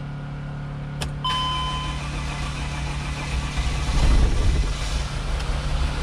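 A click and a short dashboard beep as the key is turned. Then the Mercedes Sprinter's diesel engine cranks and fires up about four seconds in, a van that had been a no-start.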